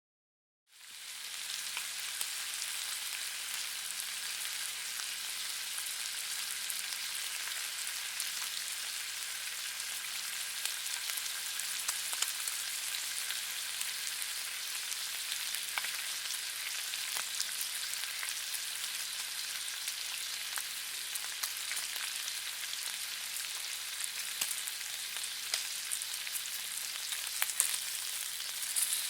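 Bacon sizzling in a frying pan: a steady high hiss of fat with scattered sharp crackling pops. It fades in from silence about a second in.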